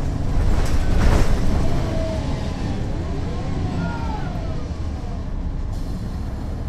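Cabin sound of a 2009 NABI 40-SFW transit bus, its Caterpillar C13 ACERT diesel engine running with a steady, heavy low rumble. A short burst of noise stands out about a second in.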